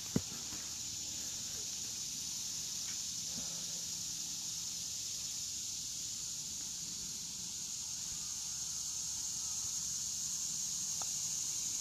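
Steady, high-pitched chorus of insects from the surrounding woods, with one sharp click just after the start.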